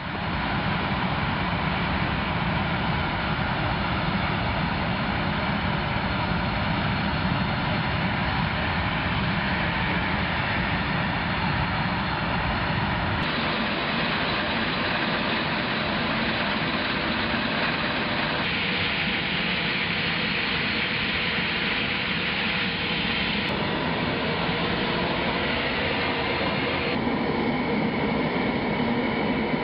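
Steady, loud mechanical noise, like engines or heavy machinery running, whose character changes abruptly several times, about every four to five seconds in the second half.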